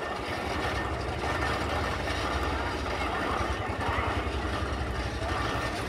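A steady low engine rumble, with faint distant voices now and then.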